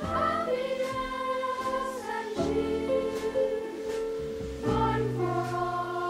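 A Christmas song sung by a choir over music, with held chords that change about two and a half seconds in and again near five seconds.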